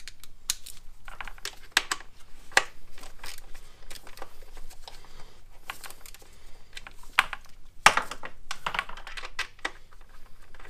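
Irregular sharp clicks and knocks of hard parts being handled in an engine bay as a throttle body is worked loose and pulled free.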